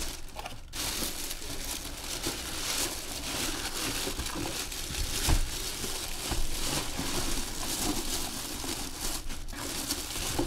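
Thin plastic bag around a football helmet crinkling and rustling continuously as hands pull the helmet out of its cardboard box, with a short lull near the end.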